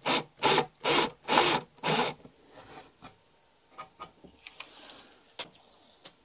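Cordless drill-driver run in five short bursts, each with a high motor whine, driving small screws into the plywood edge of a box. Light handling knocks and clicks follow.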